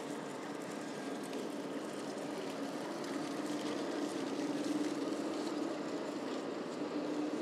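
City street traffic: a large vehicle runs past with a steady low hum that swells in the middle, over the hiss of the street.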